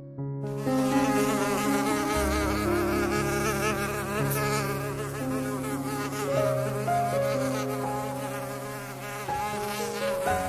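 A fly buzzing, a dense whine that wavers up and down in pitch, starting about half a second in.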